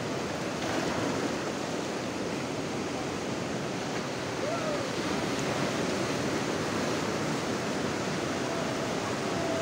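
Sea surf breaking and washing up a flat sand beach, a steady rush of foaming water.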